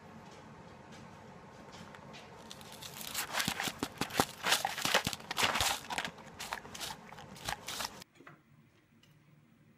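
A dog eating off a paper plate: a quick, irregular run of crunching and crinkling clicks from its mouth against the plate. It starts about three seconds in and stops suddenly at about eight seconds.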